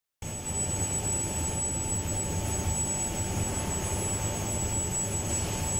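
Electrostatic disk spray booth running: a steady, unbroken mechanical rumble with a thin, constant high whine over it.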